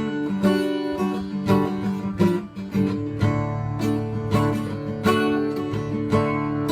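Acoustic guitar strummed in a steady rhythm, chords struck about twice a second and left ringing.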